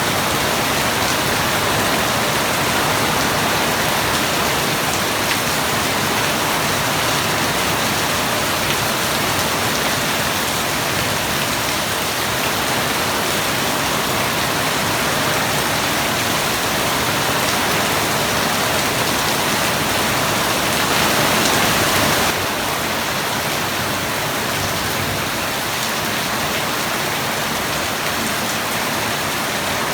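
Steady rain falling, a dense even hiss of drops on surfaces. About twenty seconds in it swells louder for a second or two, then drops back suddenly.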